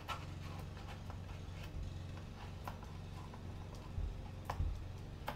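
Palette knife dabbing and smoothing paint on a canvas, giving a few light, irregular ticks over a low steady hum.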